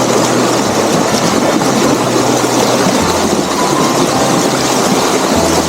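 Water rushing over a dam in a loud, steady roar of noise that does not let up.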